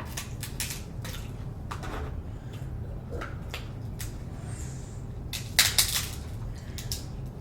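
Close-miked eating and food-handling sounds from a seafood boil: scattered clicks, crunches and wet squishes of shellfish and utensils. The loudest cluster of crunches comes about five and a half seconds in.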